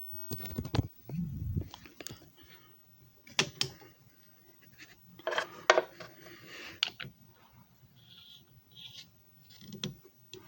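Hand handling of a disc repair machine and its discs: irregular clicks and knocks of hard parts, with a short clatter about halfway through.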